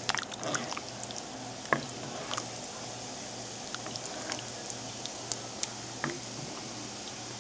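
Pot of chicken and potato soup simmering, with small bubbles popping at irregular moments over a faint low hum.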